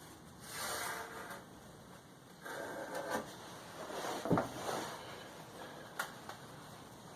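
Scraping and rubbing of steel and tools being handled on a workbench, with one sharp knock about four seconds in and a small click near the end.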